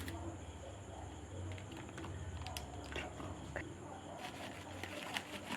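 Coated corn kernels frying in hot oil, with scattered sharp crackles and pops. A low hum runs beneath and stops about three and a half seconds in.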